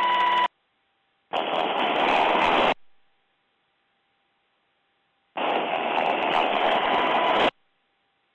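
Noise of an MH-60 Jayhawk helicopter in flight, heard through the crew's radio intercom as a steady rush that switches on and off sharply as the microphone opens and closes. It stops about half a second in, comes back for about a second and a half, then again for about two seconds near the end, with dead silence between.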